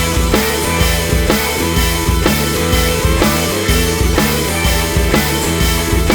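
Background rock music with a steady drum beat, about two beats a second.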